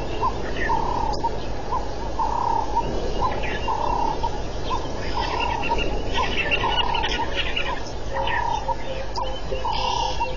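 Outdoor animal chorus: a short call repeating about twice a second, with higher chirps over a steady hiss.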